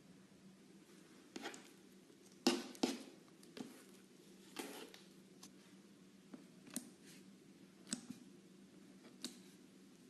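Slime being handled at close range: irregular soft crackling clicks, about eight in all and loudest about two and a half seconds in, over a low steady hum.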